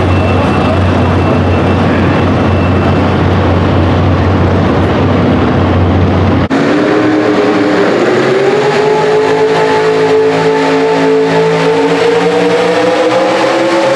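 A loud, steady low rumble with heavy noise, then an abrupt change about six and a half seconds in to a pro stock mini truck's pulling engine running at high revs, its pitch climbing slowly as it drags the weight sled down the track.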